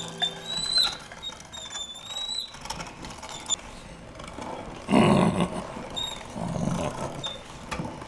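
Hand-cranked Husqvarna meat grinder being turned, its crank squeaking about once a second, then a louder rough grinding noise as meat is forced through the plate, strongest about five seconds in.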